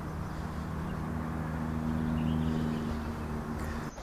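A low, steady drone of several sustained tones over a faint hiss, cutting off abruptly near the end.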